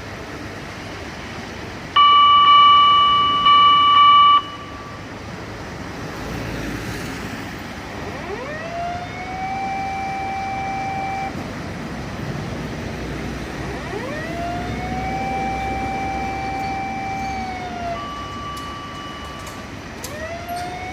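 Fire engine siren winding up in pitch and holding a steady wail, three times, with traffic noise beneath. About two seconds in, a much louder steady horn-like blast sounds twice in quick succession.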